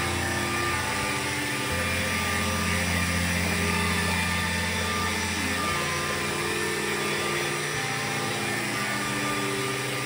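Levoit LVAC-200 cordless stick vacuum cleaner running: a steady motor whine with a rush of air, its tone shifting a couple of times, about two and six seconds in.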